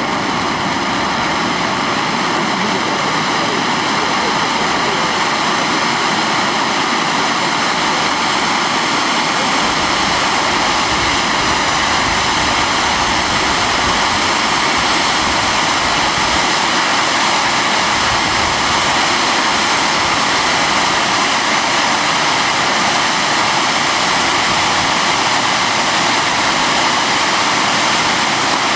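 Ground firework fountain spraying sparks: a steady, loud hiss that holds unbroken throughout.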